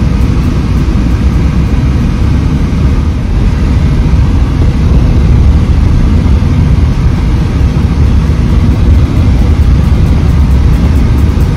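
Wind buffeting the microphone: a loud, steady low rumble that flutters rapidly in level.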